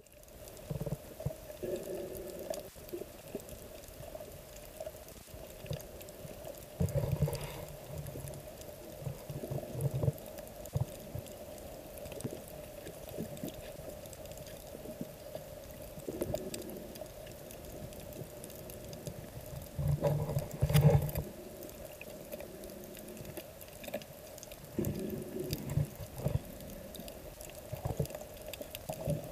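Underwater ambience picked up by a submerged camera on a shallow coral reef: muffled sloshing and bubbling water with a steady hum beneath, and louder surges every few seconds, the loudest about twenty seconds in.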